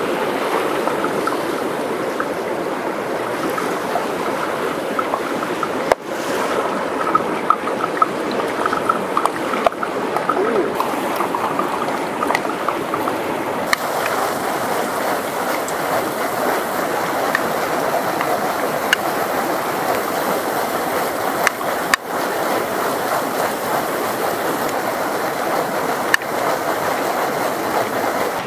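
Steady rushing of a fast mountain river, with a few faint clicks, and the sound cutting abruptly a few times.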